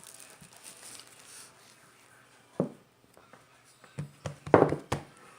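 Handling noises: a sharp click about halfway through, then a short cluster of knocks and clicks, loudest just before the end.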